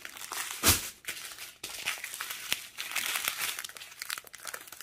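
Small plastic zip-top bags of diamond painting drills crinkling as they are handled, in irregular crackles, with one louder rustle a little under a second in.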